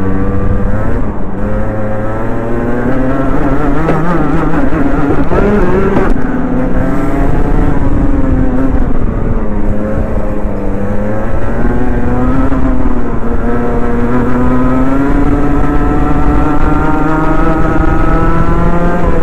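Rotax Mini Max kart's 125cc two-stroke single-cylinder engine at racing speed, heard on board. Its pitch climbs on the straights and drops back several times when braking for corners.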